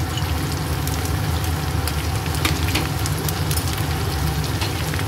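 Pork, soya chunks and vegetables sizzling in oil in a frying pan, with scattered pops and crackles over a steady low hum.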